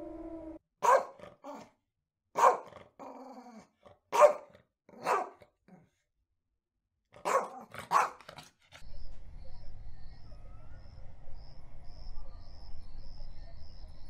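A canine barking: about seven short, sharp barks, singly and in pairs, one every second or two. They stop about eight and a half seconds in, and a low steady rumble with faint, rapid high chirps follows.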